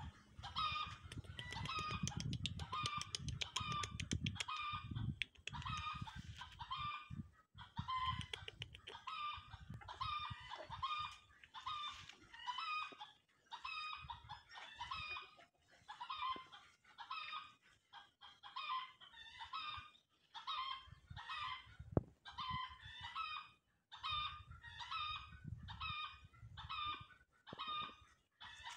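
Chickens clucking and cackling in short repeated calls about once a second, with low rumbling noise at times.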